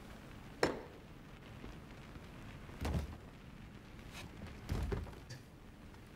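Dull thumps and knocks of people sitting down at a wooden dinner table: a sharp knock about half a second in, then two heavier thuds near the middle and towards the end.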